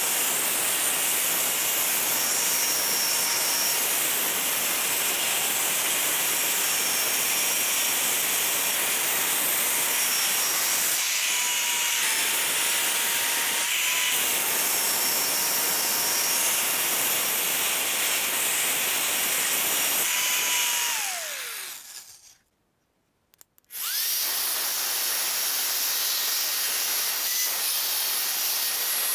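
Vevor handheld pipe belt sander running with its abrasive belt wrapped around a rusty steel pipe, a steady motor whine over the hiss of the belt grinding off rust. About 21 seconds in the motor winds down, its pitch falling, and after a short silence it starts up again, rising to a higher-pitched whine and running steadily.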